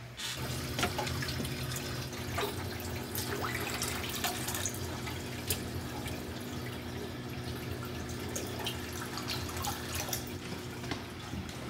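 Reef aquarium water splashing and trickling, with many small drips, over a steady low hum.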